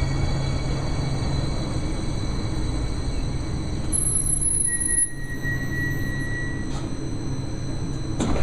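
Newark Light Rail Kinki Sharyo light rail car rolling slowly into the platform and braking to a stop, with a steady low rumble of wheels and running gear. A brief very high squeal comes about halfway through, then a thin whine for a couple of seconds. A couple of sharp clicks come near the end.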